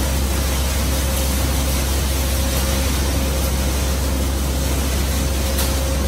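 Steady machine hum with a constant hiss and a faint, unchanging high whine.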